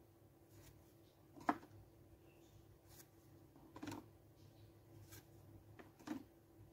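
Quiet handling of Pokémon trading cards: three soft clicks and rustles as one card is slid off the front of a small stack to show the next, over a faint steady hum.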